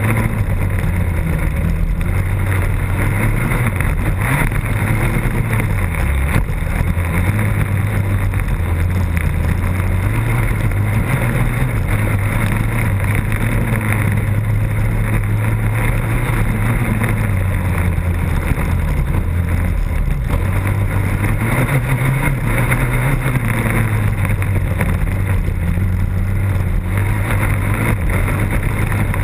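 Off-road racing engine heard close up from the machine itself, its note rising and falling every few seconds as the throttle opens and closes around the track, under a constant rush of wind and dirt noise over the microphone.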